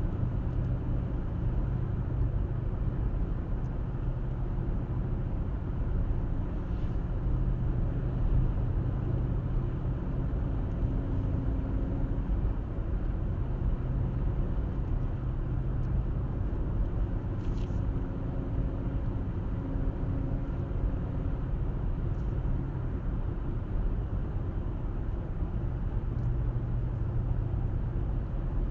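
A car driving at a steady speed, with a steady low rumble of road and engine noise and a faint engine hum.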